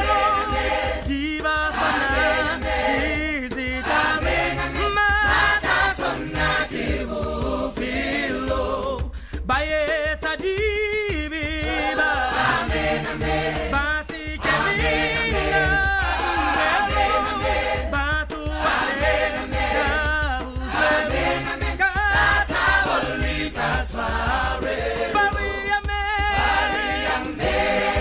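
A choir of many voices singing together, largely a cappella.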